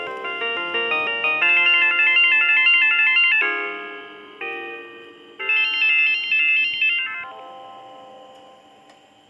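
Synthesized sound-card music from an Aztech Sound Galaxy NX Pro, played through the PC's single speaker cone. Fast runs of stepping notes over chords end in a held chord, and after a short pause another quick phrase plays before a last held note fades away.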